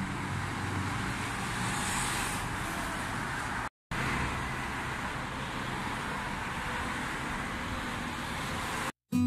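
Steady road traffic noise from cars, minibuses and motorbikes on a busy multi-lane road, with a low engine hum underneath. The sound cuts out briefly about four seconds in and again near the end.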